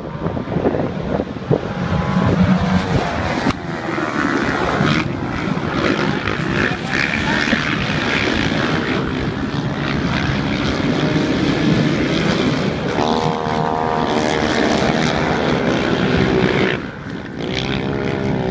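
A pack of racing quad bikes (ATVs) running around a dirt oval, their engines revving up and down as they accelerate and back off for the turns. The engine pitch sweeps are clearest about 13 seconds in and again near the end.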